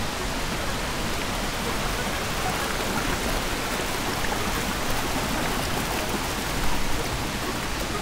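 River water rushing steadily below an erosion-control dam, an even, unbroken roar of flowing water.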